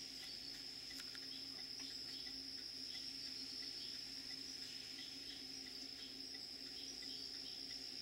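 Late-summer evening insect chorus: a steady, unbroken high-pitched trill of crickets, with another insect chirping regularly about twice a second. A faint low steady hum lies underneath.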